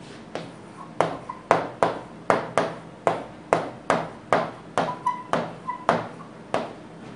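Pen tapping and clicking against the glass of an interactive display board while handwriting, a series of sharp taps at about two to three a second with a short ring after each.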